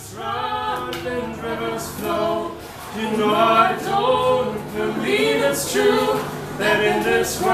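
Voices singing a song without instruments, a melody of sustained notes.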